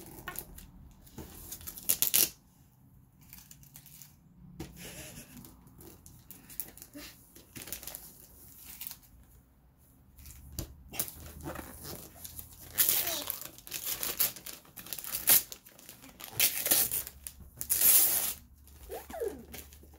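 Paper gift wrapping being torn and crumpled as a box is unwrapped: one sharp rip about two seconds in, then a long run of loud rips and rustles in the second half.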